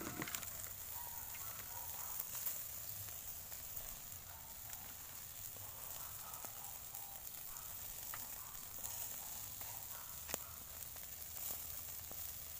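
Skewered chicken pieces sizzling faintly over a charcoal grill, a steady hiss with a few small crackles scattered through it.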